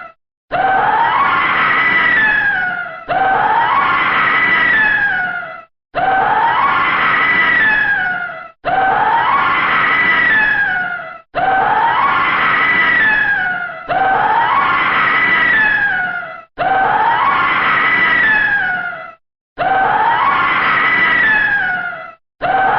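A woman screaming in horror, the same scream repeated about nine times at even spacing, roughly every two and a half seconds. Each scream climbs in pitch and then falls away before a short break.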